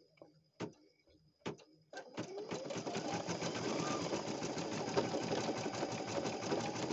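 Baby Lock Flare embroidery machine: a few separate sharp clicks, then about two seconds in it starts stitching. The stitching is a rapid, even needle clatter that builds up and runs steadily.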